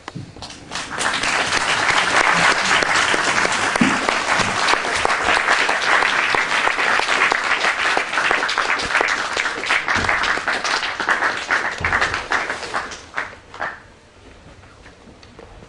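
Audience applauding: dense clapping that builds up about a second in, holds steady, then thins out to a few last claps near the end.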